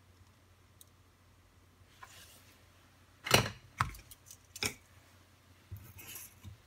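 A few sharp knocks and clicks of tools and small parts being handled on a workbench, the loudest a pair about three seconds in and another shortly after, with brief rustling of hands around them over a faint steady hum.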